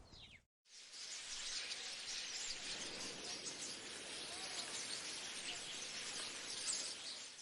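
Natural ambience of many small birds chirping over a steady, dense high hiss. It cuts out briefly about half a second in, then runs on evenly.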